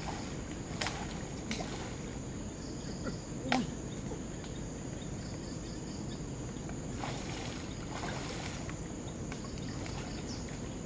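A steady high-pitched insect drone over a low wash of water noise, with a few sharp clicks in the first four seconds and soft splashing of someone wading through floodwater around seven seconds in.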